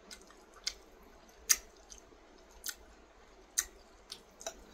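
Close-miked eating sounds: a person chewing a mouthful of rice and peas with chicken, broken by about six sharp, short clicks spread through the few seconds.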